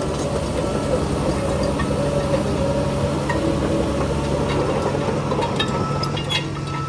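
Heavy diesel engine of earthmoving machinery running steadily, with scattered sharp clicks and clatters over it.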